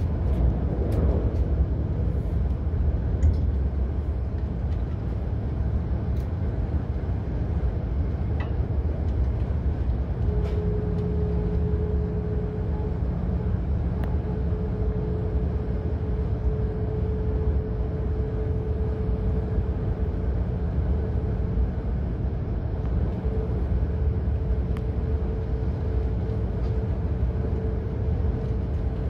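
E5 series Shinkansen running at speed, heard inside the passenger cabin: a steady low rumble, with a faint steady tone joining it about ten seconds in.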